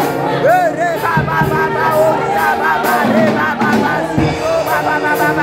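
Live gospel praise music through a PA: women's voices singing a melody with bending, sliding notes over electronic keyboard chords, with a steady beat of high ticks.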